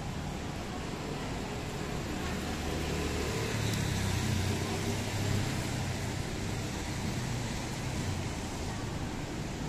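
Steady hiss of rain, with a motor vehicle passing close by: its engine hum grows, is loudest about four to five seconds in, then fades.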